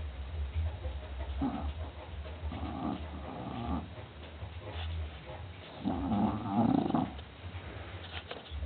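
English bulldog snoring in its sleep: three long snores, each a second or so, the last one the loudest, over a steady low hum.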